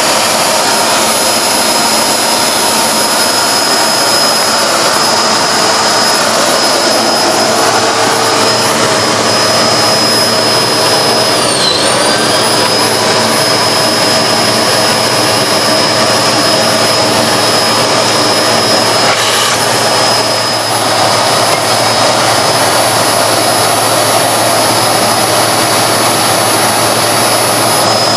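Hoover Globe bagless vacuum cleaner running with a steady high-pitched whine. About twelve seconds in, its pitch dips briefly and then recovers.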